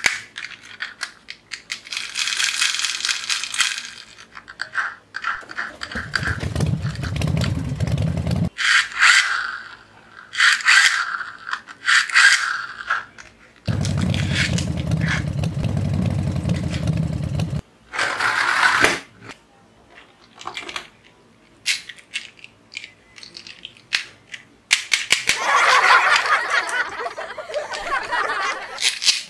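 Small plastic toys handled and turned in the hands: plastic clicking, rattling and scraping, with two longer stretches of a steady low rattling buzz as parts are spun.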